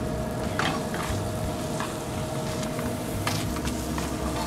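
Spaghetti and chicken sauce sizzling in a hot sauté pan over a gas burner, with a few sharp clinks of metal tongs against the pan.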